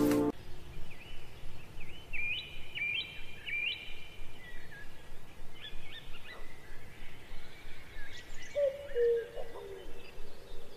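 Small birds calling in the background over a steady ambient hiss: a quick run of short, high chirps a couple of seconds in, and lower whistled notes near the end.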